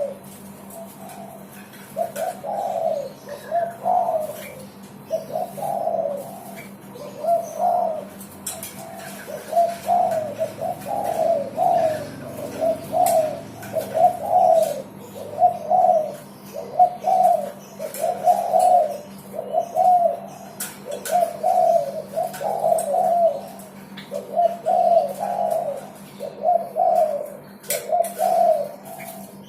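Derkuku (spotted dove) cooing over and over, a steady run of repeated coo phrases about one to one and a half seconds apart, over a faint steady hum.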